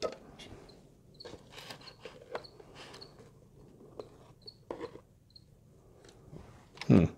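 Long metal tweezers scraping and clicking against thin plastic containers and loose soil substrate in scattered small strokes, with one louder, deeper knock of plastic near the end.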